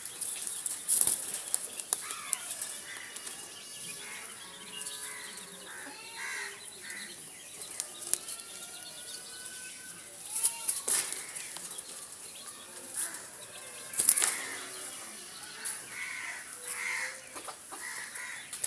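Pigeons flapping their wings in several sudden bursts, the loudest about three-quarters of the way through, among short, repeated bird calls.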